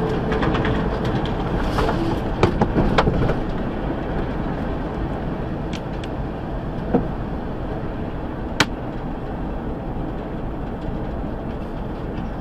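Steady road and engine noise inside a truck cab at highway speed, with a few sharp clicks or knocks about two and a half to three seconds in and again near seven and eight and a half seconds.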